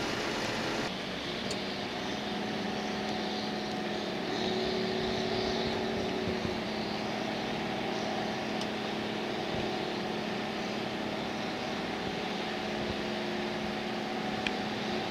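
An engine running steadily: a constant hum with several steady tones.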